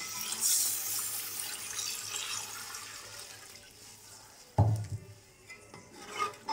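Chicken stock being poured into a pot of oil and mashed tomatoes, splashing and fading out over about three seconds. About four and a half seconds in comes a single loud knock.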